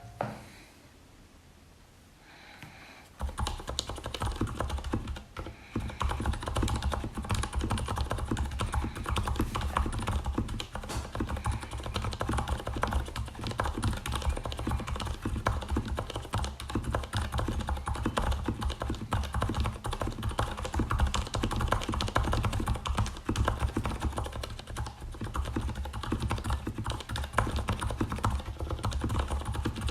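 Fast typing on a Leopold FC750RPD tenkeyless mechanical keyboard with Cherry MX Silent Red switches lubed with Krytox 205g0. It begins about three seconds in as a dense run of soft, damped keystrokes with a bassy tone.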